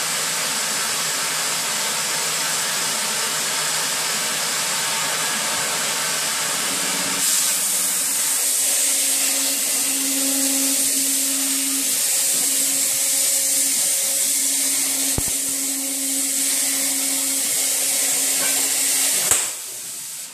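Oxy-fuel cutting torch on a CNC table hissing steadily. About seven seconds in, the cutting oxygen comes on and the hiss turns louder and higher, with a steady low hum, while the torch cuts. Near the end it cuts off abruptly as the oxygen is shut off.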